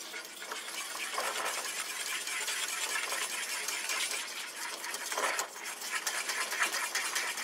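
Metal utensil stirring and scraping around the bottom of a stainless steel saucepan of hot milk, melting in chopped white chocolate: a steady run of quick scrapes and clicks.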